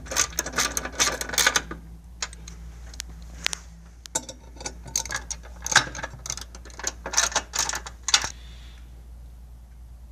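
Socket ratchet clicking in quick runs of strokes as it tightens mounting bolts with a half-inch socket; four bursts of clicking, stopping about eight seconds in.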